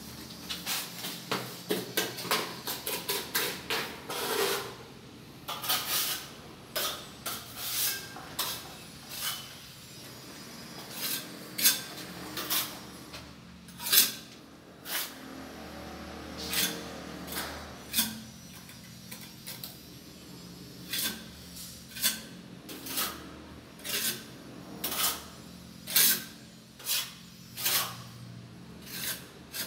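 A small metal blade scraping short strokes along the tile edges and joints of a shower niche, clearing mortar. The strokes come quickly in the first few seconds, then roughly one a second.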